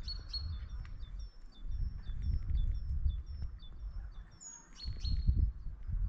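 A small songbird singing, repeating a short high two-note phrase about twice a second, with a longer high falling whistle about four and a half seconds in. A low, uneven rumble runs underneath.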